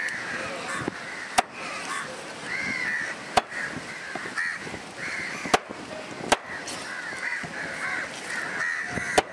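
Large knife chopping trevally into pieces on a wooden block: about five sharp knocks spread a second or two apart, with crows cawing repeatedly throughout.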